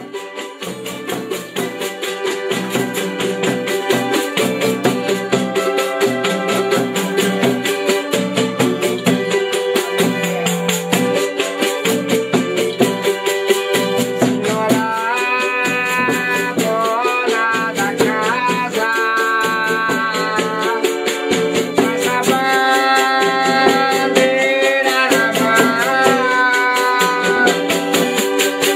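Folia de Reis ensemble music: strummed strings over a fast, steady shaker and tambourine rattle, fading in over the first few seconds, with voices singing from about halfway.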